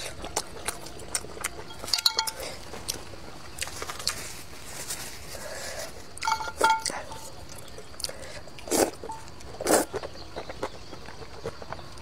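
Noodles being eaten with chopsticks from a metal bowl: soft chewing, with chopsticks clinking against the bowl so that it rings briefly about two seconds in and again about six seconds in, and two loud slurps of noodles near the end.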